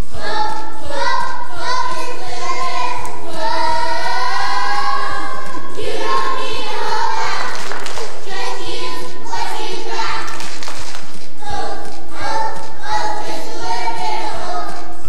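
A group of young children singing together over instrumental accompaniment with a stepping bass line.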